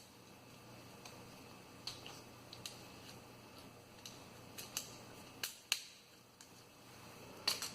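Faint, scattered small clicks and light taps, about a dozen over several seconds, from handling a replacement power switch and meter test probes.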